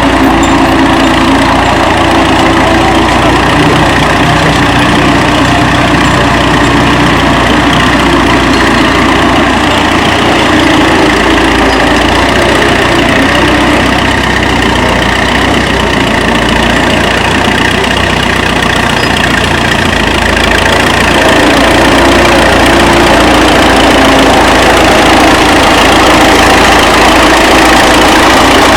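A 1935 Fordson tractor's four-cylinder engine running steadily, growing a little louder about two-thirds of the way through.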